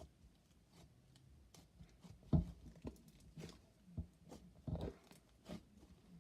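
Slime being squished and folded by hand, giving irregular small wet pops and crackles, the 'sizzly' sound this slime makes; the loudest pops come about two and a half and five seconds in.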